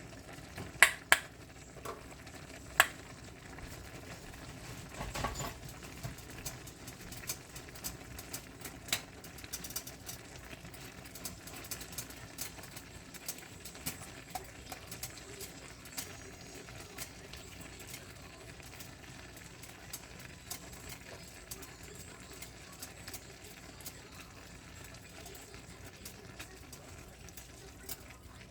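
Kitchen utensils clinking and tapping over a steady low hiss: three sharp knocks in the first few seconds, then lighter, scattered ticks.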